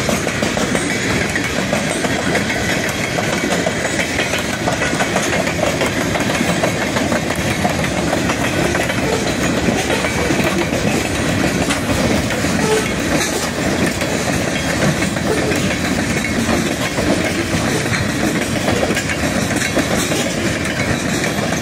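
Freight train cars, open-top hoppers and then tank cars, rolling steadily past: a continuous loud rumble and clatter of steel wheels on the rails.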